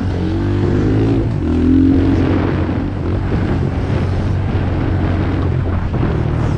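Stock Honda CRF110F's small four-stroke single-cylinder engine being ridden hard. Its pitch climbs, drops at a gear change and climbs again in the first two seconds, then the note blurs into rougher noise.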